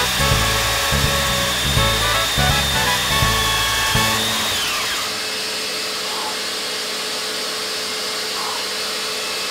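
RT-160 diamond core drill running in clinker brick with a steady high whine, under background music with a beat; about four seconds in the motor is switched off and its whine falls away as it spins down. A steady hiss from the dust extractor runs on after it.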